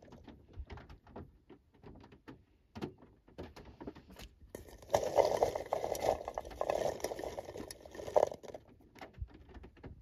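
Fresh raw cranberries clicking and rolling against one another and the sides of a pot as a hand sorts through them. Scattered light clicks throughout, thickening into a denser rustle from about halfway to near the end as the hand stirs into the pile.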